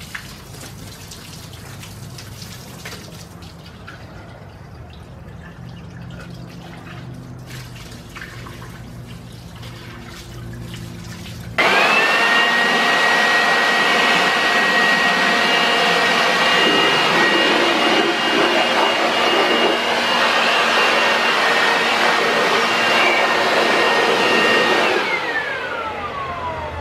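A garden hose pours and splashes water over a bare Ford 390 FE engine block while it is rinsed. About halfway through, a handheld leaf blower switches on suddenly with a steady high whine and blows the block dry. Near the end it winds down, its whine falling in pitch.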